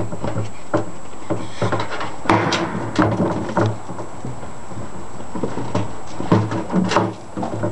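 Seven-week-old puppies' paws and claws scrabbling and knocking on a hollow plastic hippo sandpit, an irregular run of clicks and thumps.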